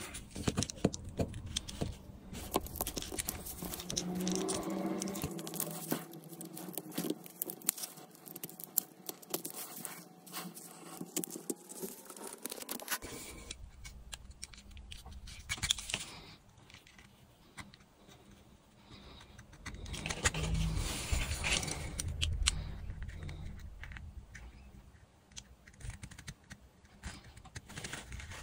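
Irregular clicking, tapping and scraping of small tools and materials being handled at a workbench.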